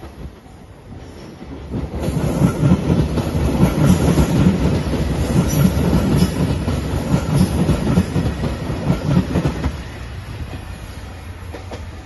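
JR Shikoku 2700 series diesel limited express train passing close by, its wheels clattering over the rail joints in a quick, even rhythm. It grows loud about two seconds in and eases off near the end.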